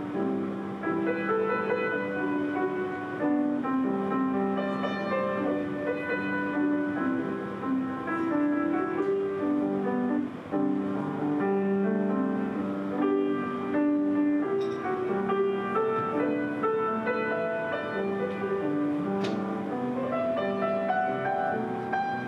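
Piano playing a melody over chords.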